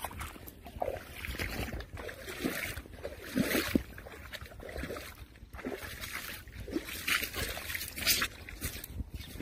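Irregular rustling and footsteps through grass, with handling noise on the phone's microphone, and a few brief pitched squeaks mixed in.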